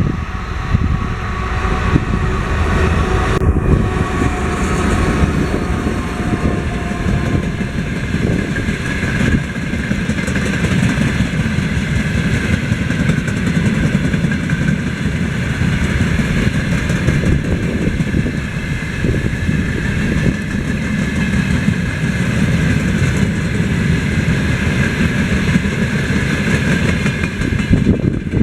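A freight train hauled by a 2TE116 twin-section diesel locomotive running past: a continuous heavy rumble of the diesel engine and rolling wheels on the rails, with a steady engine tone over the first several seconds giving way to the sound of the wagons rolling by.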